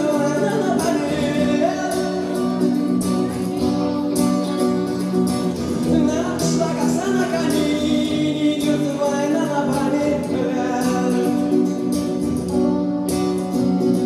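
Live song: a man singing over a strummed acoustic-electric guitar, with a second guitarist playing an electric guitar.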